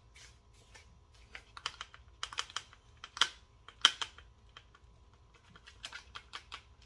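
Light plastic clicks and taps of a Kydex pistol holster and the Canik pistol seated in it being handled and turned in the hands, with two sharper clicks about three and four seconds in.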